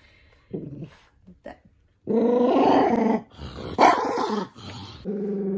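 Toy poodle growling in several long, steady growls, with a sharper, louder outburst about four seconds in. It is angry at having socks put on its paws.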